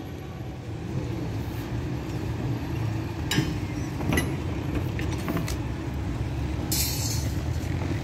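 Steady low rumble of outdoor background noise, with a few faint clicks in the middle and a brief high hiss near the end.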